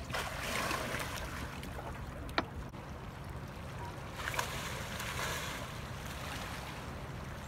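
Outdoor river ambience: a steady low rumble of wind and water on the microphone, with two stretches of hissing gusts and two sharp clicks.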